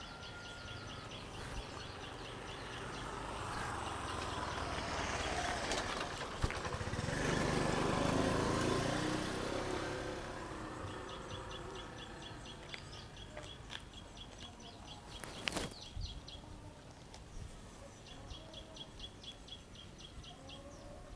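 Outdoor ambience: a vehicle passes, its noise swelling over several seconds and then fading, while something repeats a rapid high chirping trill in short bursts. A single sharp knock comes about two-thirds of the way through.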